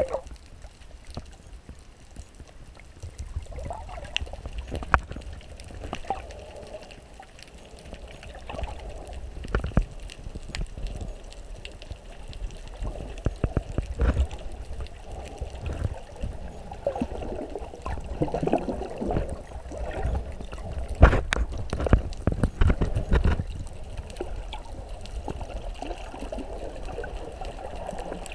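Underwater sound through a GoPro's waterproof housing: muffled sloshing and gurgling of water with a low rumble, stirred by a snorkeler swimming close to the camera. Scattered sharp clicks and knocks run through it, the loudest a cluster about two-thirds of the way in.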